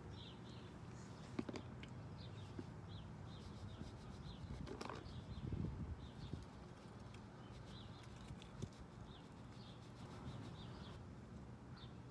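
A small bird chirping repeatedly in the background, short high chirps about two a second, over a low steady hum. A brief soft rush of noise comes about five seconds in.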